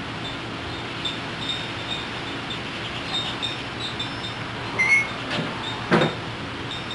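Metal grilling utensils clicking lightly on a gas barbecue's grate as food is turned, then a short high clink and one sharp knock about six seconds in, over a steady background hiss.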